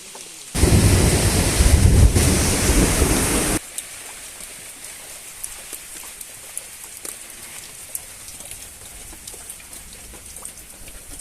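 Rain: a loud, heavy rush for about three seconds that starts and stops abruptly, then lighter steady rain with scattered drops ticking.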